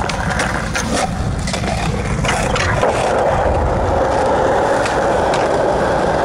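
Skateboard wheels rolling on concrete in a steady grinding rush, with a few sharp clacks of the board in the first couple of seconds as it lands off a bank.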